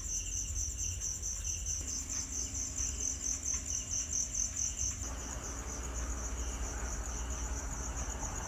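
Night insects, cricket-like, trilling steadily in a high, fast pulse over a low steady hum; the trill shifts slightly about five seconds in.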